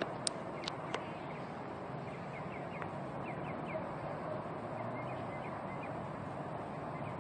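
Steady low outdoor noise, the unexplained sound in the sky that comes and goes, with faint bird chirps over it. There are three small clicks in the first second.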